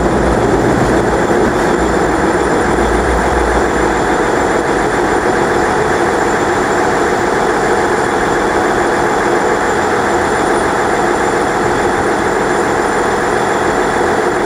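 Class 450 Siemens Desiro electric multiple unit pulling in along the platform: a steady rumble of wheels and running gear with a thin high whine over it. The deep rumble dies away about four seconds in as the train slows.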